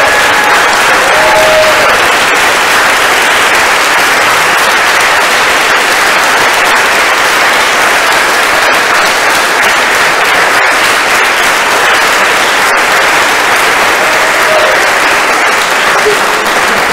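Congregation and choir applauding: many hands clapping in a dense, steady applause that holds without a break.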